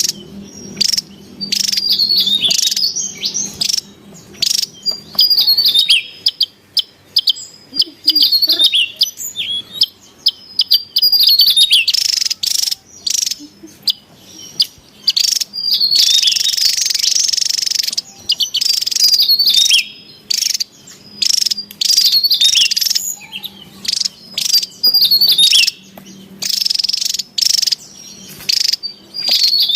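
Javan tesia singing in repeated short bursts of rapid, jumbled high-pitched notes. About halfway through comes a harsh, hissing stretch lasting about two seconds.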